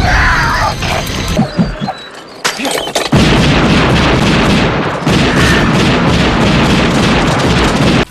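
Action-film sound effects: sharp booming impacts like gunshots or blasts, then from about three seconds in a loud, steady rush of noise that cuts off abruptly.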